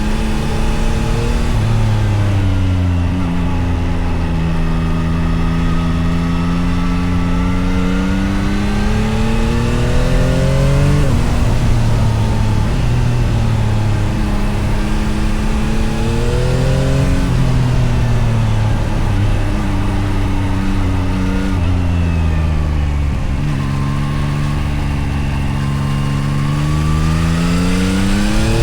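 Yamaha MT-09 SP 2024's 890 cc inline-three engine under way on the road, its revs climbing and falling several times, with a few sudden drops in pitch as the throttle is shut or a gear is changed.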